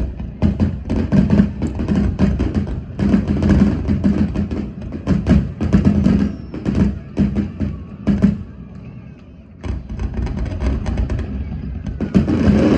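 Music with a busy percussion beat of drum and wood-block-like strikes. It thins out briefly about two-thirds of the way in, then comes back.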